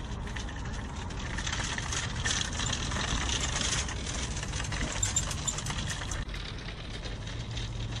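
Flatbed shopping cart's wheels rolling over coarse asphalt, a rumbling rattle that grows louder about two seconds in as the cart and footsteps pass close by, then fades as they move away.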